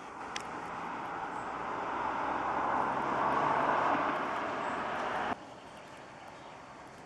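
A motor running, growing steadily louder for about four seconds, then cut off abruptly about five seconds in.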